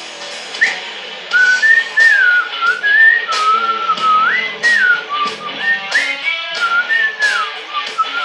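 A whistled melody wavering up and down over a playing rock song with a steady beat, starting about a second in.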